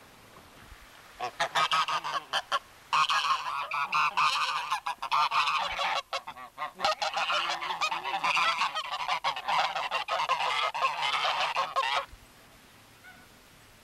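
A flock of domestic geese honking, many loud calls overlapping almost without a break. It starts about a second in and stops abruptly near the end.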